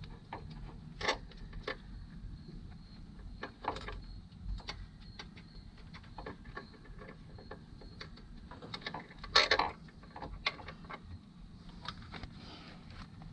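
Irregular metallic clicks and taps of bolts and hand tools being handled while the front engine cover is bolted on, with one louder knock about nine seconds in.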